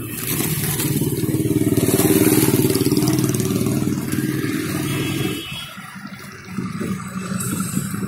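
Motorcycle engine running with a rapid low throb; it drops away about five and a half seconds in and picks up again a second later.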